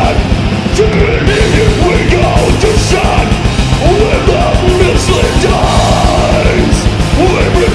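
Death metal/grindcore song: distorted guitars and fast, relentless drumming under harsh yelled vocals.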